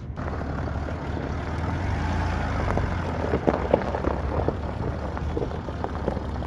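Land Rover Discovery engine running at low speed as the vehicle crawls over a gravel track, with scattered crackles of the tyres on loose stones about halfway through.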